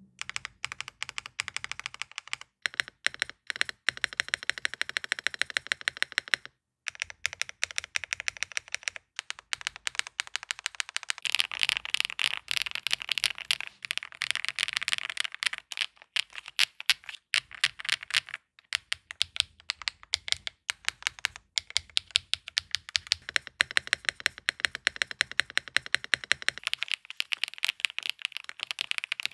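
Steady fast typing on a Chosfox Fox65 custom mechanical keyboard built all-foam, with an FR4 plate, gasket/top mount, Chosfox White Fox switches and Snowfrost PBT keycaps: a dense run of muted keystrokes with a brief pause about six and a half seconds in. The all-foam build gives the pebbly, gravel-rolling kind of keystroke sound.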